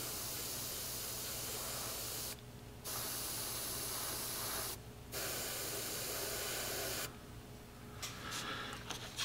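Airbrush spraying thinned gray paint in light passes: three steady hisses of about two seconds each, with short breaks where the trigger is let off. Faint small handling sounds near the end.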